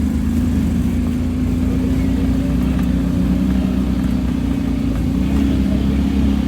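Motor vehicle engine running steadily, a constant low drone with no change in speed.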